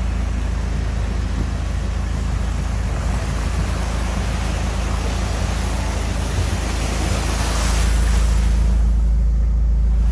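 Strong storm wind from the tornado blowing hard over the microphone: a heavy, steady low rumble with hiss. About eight seconds in the hiss swells brighter, then drops away while the rumble grows louder.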